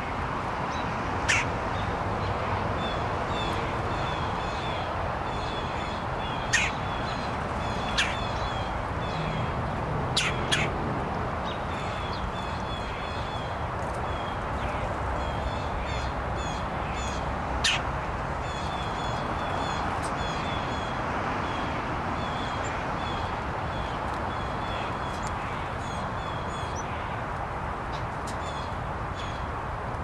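Wild birds calling around a backyard feeder: a few sharp, short chip calls stand out, and stretches of quick high notes repeat several times a second, over a steady background rush.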